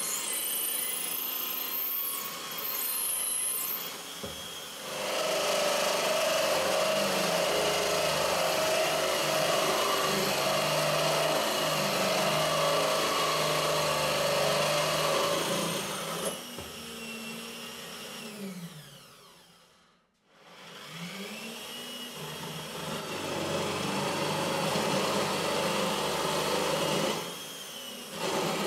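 Benchtop drill press running, its bit boring into plywood with a steady cutting noise. About 16 seconds in the motor winds down in pitch to a stop, then starts again, spins up and cuts once more, with a brief dip near the end.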